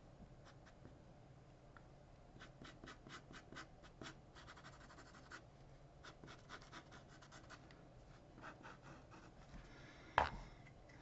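Sharpie marker tip hatching on paper: quick short strokes, several a second, in runs, with a stretch of denser, continuous scratching about four seconds in. A single sharp knock about ten seconds in is the loudest sound.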